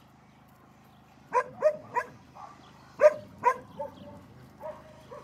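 A dog barking in short runs: three sharp barks about a second and a half in, three more about three seconds in, and a couple of fainter barks near the end.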